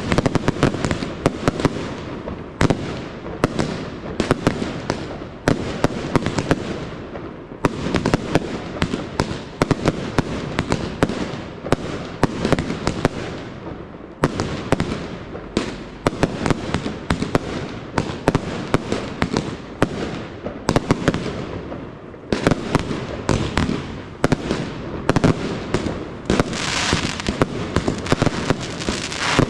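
Aerial fireworks bursting overhead in a rapid stream of sharp bangs, with a few brief thinner spells. About 27 seconds in, a dense crackling hiss of glittering stars sets in under the bangs.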